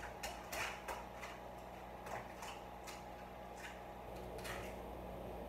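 Faint, irregular light clicks and taps from eggs and shells being handled at a bowl on a kitchen counter, several in quick succession at first, then a few scattered ones.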